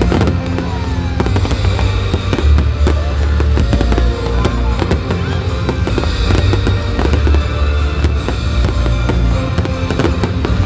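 Fireworks bursting and crackling in rapid succession over loud music with a heavy bass beat.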